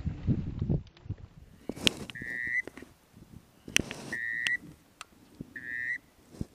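A whistle blown in three short, steady high blasts about a second and a half apart, each lasting about half a second. Two sharp clicks come between the first blasts, the louder of them just before the first.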